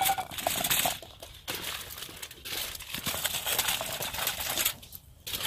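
Aluminium foil crinkling as a foil parcel of potatoes is handled and emptied into a pan. There are two stretches of crinkling, the first about a second long, then a longer one after a short pause.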